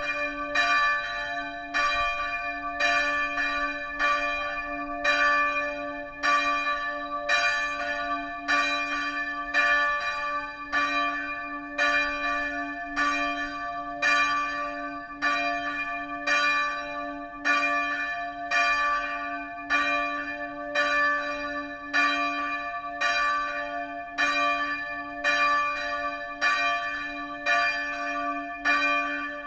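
Bell of Catholic Motomachi Church, struck by its timer-driven mechanical ringer. It tolls in a steady, even rhythm, each stroke ringing on into the next over a sustained low hum.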